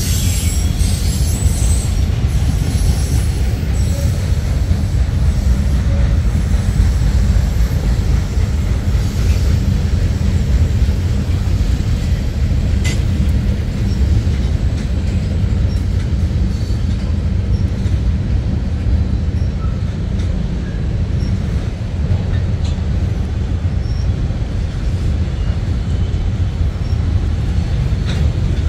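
Freight cars of a manifest train rolling past: a steady, heavy rumble of wheels on rail, with a high wheel squeal in the first few seconds.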